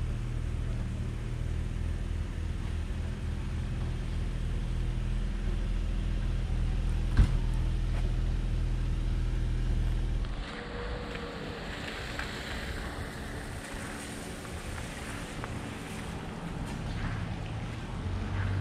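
Low, steady engine hum that cuts off abruptly about ten seconds in, with a single sharp click a few seconds before the cut-off.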